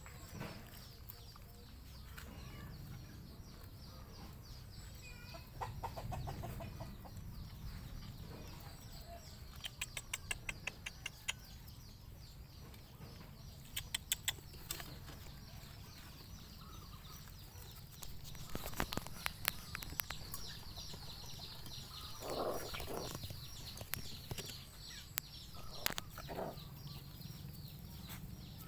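A mother dog and her puppies eating together from a metal bowl: chewing and lapping with quick runs of clicks as food and teeth hit the bowl. A few short animal calls come through about two-thirds of the way in and again near the end.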